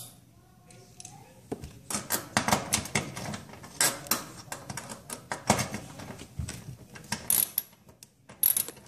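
Irregular metal clicks and scrapes, several a second, as a socket tool tightens a nut back down on an electric range's terminal block stud. The clicking starts about a second and a half in.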